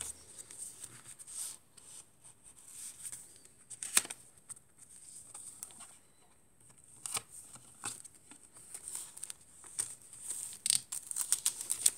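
Paper pages of a chunky handmade junk journal rustling and crinkling as they are turned and handled, with one sharp tap about four seconds in and a busier flurry of crinkling near the end.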